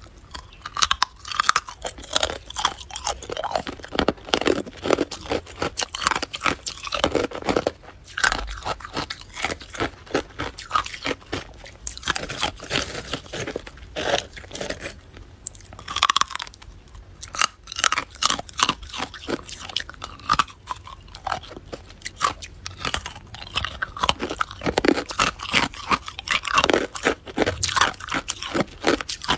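Hard crushed ice being bitten and chewed, a dense run of sharp cracks and crunches with a couple of short pauses about halfway through.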